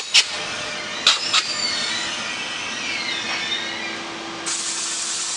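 NJ Transit Multi-Level commuter coaches rolling past as the train slows into the station, with a few sharp wheel clacks over rail joints and a faint squeal of wheels or brakes. From about three seconds in, a steady hum rises as the pushing ALP-46A electric locomotive arrives, and a loud hiss starts about four and a half seconds in.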